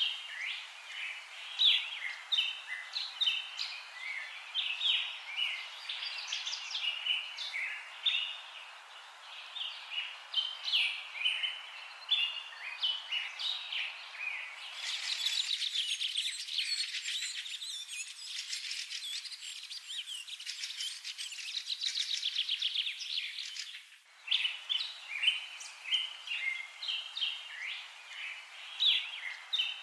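Many small birds chirping and calling in quick, short notes. About halfway through, a dense, rapidly pulsing high chorus takes over for around eight seconds, then the chirping returns.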